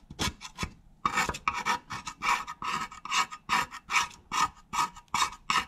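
Hand scraping on an engine tappet (valve) cover: a steady run of short, rasping back-and-forth strokes, about two to three a second.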